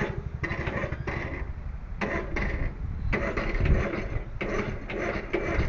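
Riding lawnmower's small engine running unevenly, pulsing fast for about a second, then surging and dropping in irregular spurts with a few sharp knocks.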